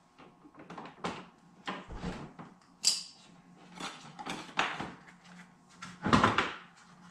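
Smart car's plastic front hood panel being unlatched and lifted off: a series of clicks and knocks from the latch tabs and panel. There is a sharp click about three seconds in, and the loudest clunk comes about six seconds in as the panel comes free.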